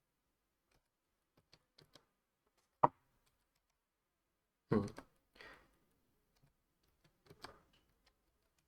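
Mechanical keyboard switches without keycaps being pressed one at a time to test them, giving sparse, irregular clicks. A sharp click comes about three seconds in and a heavier knock about five seconds in, with a few lighter clicks near the end.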